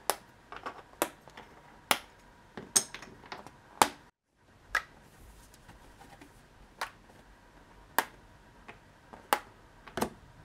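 About ten sharp, separate clicks, roughly one a second: small hard 3D-printed plastic parts (tyres, hubcaps, body pieces) being handled, lifted off a printer's build plate and set down.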